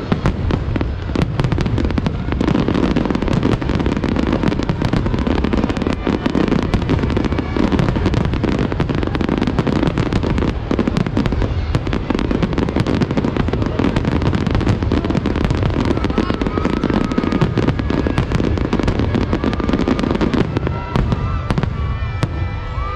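Aerial fireworks display: a dense, continuous barrage of bangs and crackling shell bursts over a deep rumble, with no break.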